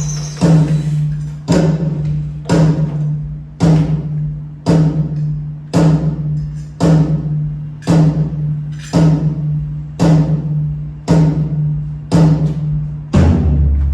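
Music with a heavy drum hit about once a second, each hit ringing on as a low tone; a deeper bass comes in near the end.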